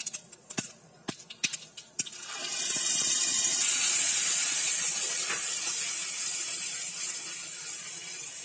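Mustard and cumin seeds crackling and popping in hot mustard oil with sharp separate clicks. About two seconds in, a loud sizzling hiss starts as wet ground red chilli, tomato and garlic paste is poured into the hot oil. The sizzle slowly dies down.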